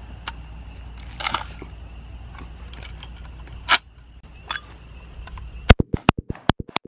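A few light metallic clicks and knocks as a gun is handled and worked, then a rapid string of about seven gunshots in just over a second near the end, much louder than anything before them.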